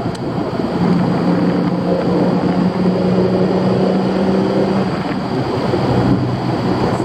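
Heavily tuned Audi S4 B5 2.7-litre twin-turbo V6 running, heard from inside the cabin with road noise, its note holding steady and shifting pitch about a second in and again about five seconds in.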